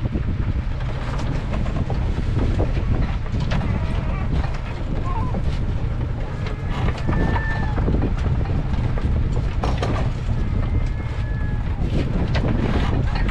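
Steady low rumble of a small fishing boat's engine, with frequent clacks and knocks from a crab pot being handled on deck and king crabs being sorted.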